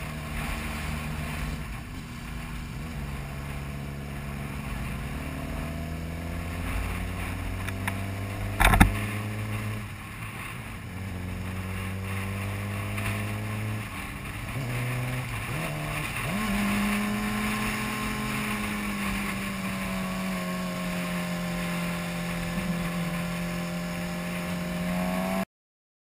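Sport motorcycle engine heard from the rider's helmet, running at road speed, its note slowly rising and falling and dipping then climbing again about fifteen seconds in, with wind rushing over the microphone. A single sharp thump comes about nine seconds in, and the sound cuts off suddenly near the end.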